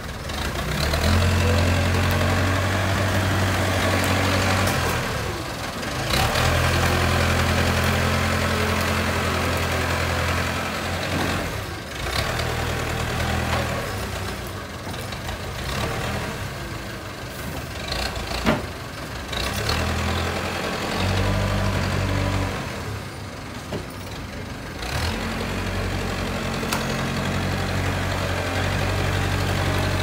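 JCB 3CX backhoe loader's diesel engine working under load, its low hum swelling strongly for several seconds at a time as the front bucket pushes soil and debris, then easing off between pushes. One sharp knock partway through.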